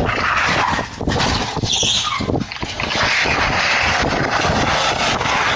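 A car crashing into a house: a clatter of knocks and impacts in the first couple of seconds, then a steady loud rushing noise. Heard through a Ring doorbell camera's microphone.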